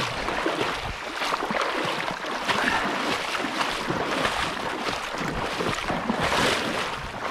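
Hurried footsteps sloshing and splashing through knee-deep shallow seawater: a continuous, irregular splashing.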